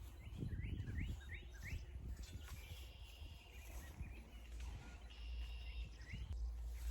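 Birds chirping outdoors: a quick series of about five short rising chirps, then two short buzzy trills and one more chirp, over low rustling and wind noise.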